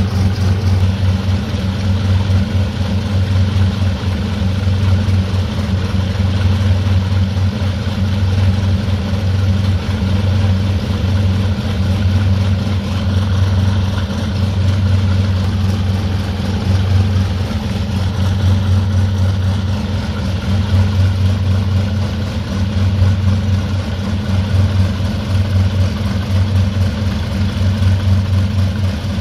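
Dassault MD312 Flamant's two SNECMA 12S inverted V12 piston engines running steadily at low power: an even, low drone that stays level with no revving.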